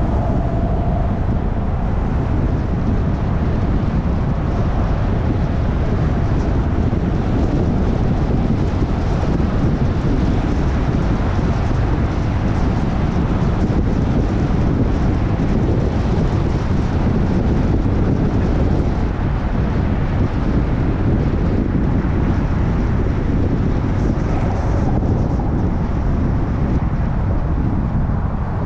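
Steady road noise of a car driving at freeway speed: an even, deep rumble of tyres on pavement mixed with wind.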